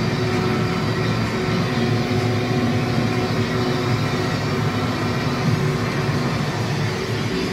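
John Deere 6155M tractor's six-cylinder diesel running steadily under load, with the Krone CF 155 XC Plus round baler working behind it, heard from inside the cab as an even drone with a steady hum.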